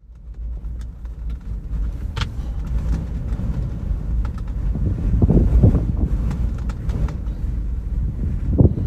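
Wind buffeting an outdoor microphone: a steady low rumble that swells louder about halfway through and again near the end.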